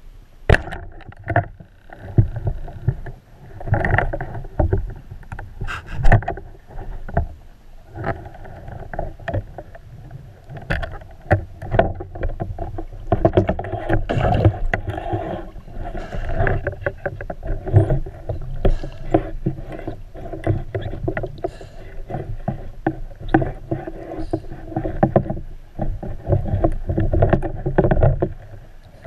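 Underwater sound picked up by a camera in a waterproof housing while a spearfisher swims with a speargun: a muffled rushing of moving water, broken by many sharp clicks and knocks.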